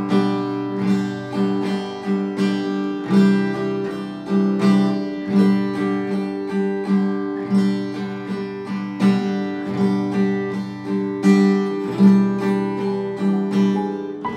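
Acoustic guitar strummed in a slow, steady rhythm, accompanying a worship hymn.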